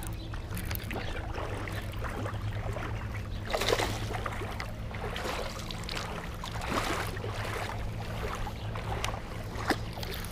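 A small hooked fish being cranked in on a baitcasting reel, splashing in the shallows a few times before it is landed, over a steady low hum.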